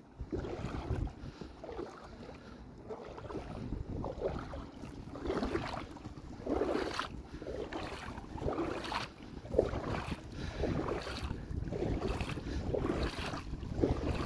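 Wind buffeting the microphone with a steady low rumble, and small waves lapping over seaweed at the water's edge in irregular swells.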